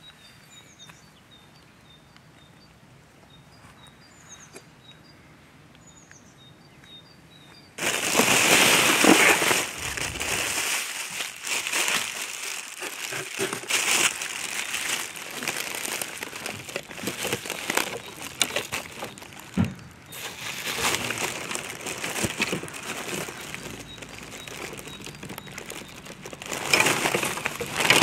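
Plastic air-cushion packaging and bubble wrap crinkling and rustling as it is pulled away from new fishing rods in a cardboard box, with many sharp crackles. It starts suddenly about eight seconds in, after a quiet stretch with faint high chirps.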